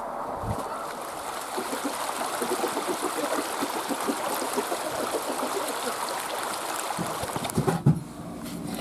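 Swollen creek rushing steadily, running high. A few low knocks come near the end.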